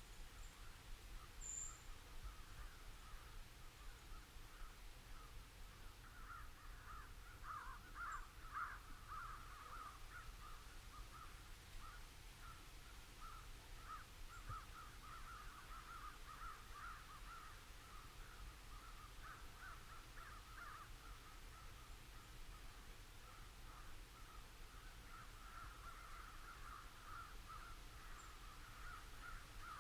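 Faint, continuous cawing of many crows, short calls following one another and overlapping, thicker in places. A brief high chirp from a small bird comes about a second and a half in.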